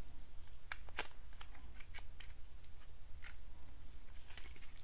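Small clicks, taps and rustles of a perfume sample's packaging being handled and opened, with one sharper click about a second in.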